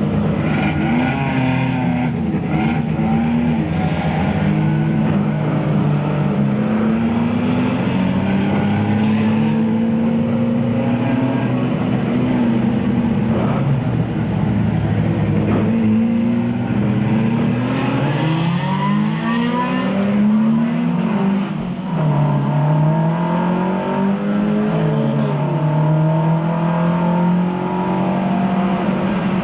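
Onboard sound of a 1971 Alfa Romeo Giulia race car's twin-cam four-cylinder engine under hard driving. The revs climb through the gears and drop back repeatedly, with a brief lift about three-quarters of the way through.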